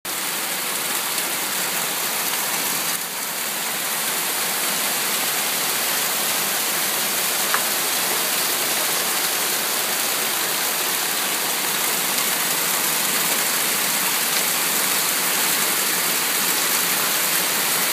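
Hail mixed with rain falling hard and steadily on a wooden deck and garden plants: a dense, even hiss with no let-up.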